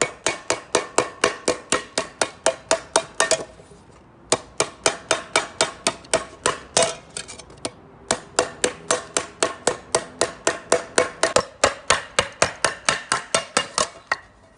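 A hammer striking metal in rapid, even blows, about five a second, with a short ringing tone after each blow. It comes in three runs, with brief pauses a little under halfway through and again about halfway through.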